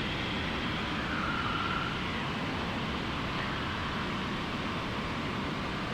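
Steady cockpit noise of a single-engine piston airplane in flight: engine and airflow heard as an even, unbroken hiss.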